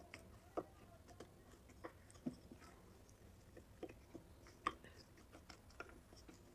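Faint, scattered soft clicks and wet squelches of fingers pressing and turning roasted clay pieces in wet clay paste, with the loudest click a little under five seconds in.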